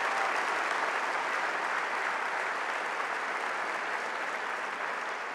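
Large audience applauding steadily, the clapping slowly fading toward the end.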